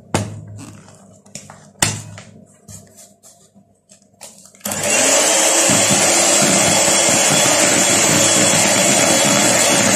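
Electric hand mixer switching on abruptly about halfway through and then running steadily at speed, beating butter and powdered sugar. Before it starts there are a couple of sharp knocks and a few faint clicks.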